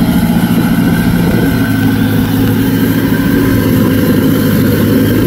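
Off-road Jeep's engine running loud and steady, holding one speed.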